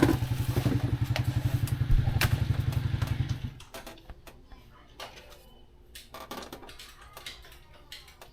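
A small engine running with a rapid, even putter, then cutting off suddenly about three and a half seconds in. After that come a few light scattered knocks and clicks.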